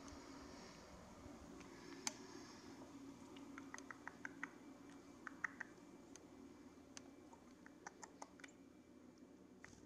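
Near silence: a faint low hum with scattered faint clicks, including a quick run of them around the middle.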